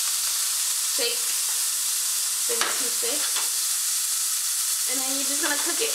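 Seasoned steak pieces frying in a hot skillet, a steady sizzle, as they are stirred with a utensil, with a sharp tap against the pan about two and a half seconds in.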